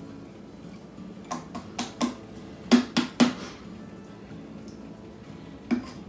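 Sharp clinks of a spoon knocking and scraping against a glass pasta-sauce jar as the last sauce is worked out: two quick groups of clinks near the middle and one more near the end.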